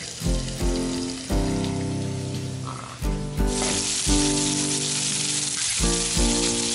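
Strips of beef searing in a hot cast iron skillet: a steady sizzle that grows louder and brighter about three and a half seconds in. Instrumental music with held notes plays over it.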